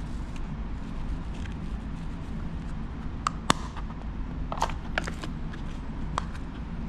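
Small clear plastic jewellery boxes being handled, giving a handful of sharp plastic clicks and taps about halfway through, the loudest a single snap. A steady low rumble runs underneath.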